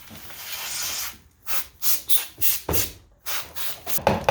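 Hand scraping on a part: one long scrape for about a second, then repeated short rasping strokes, about three a second.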